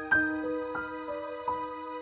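Gentle background music of struck, ringing notes, a few a second, over held tones.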